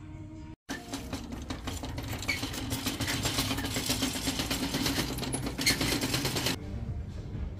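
Plastic shopping cart rattling as it is pushed over a concrete store floor: a fast, continuous clatter of wheels and basket that starts about half a second in and stops near the end. Quieter background music before and after it.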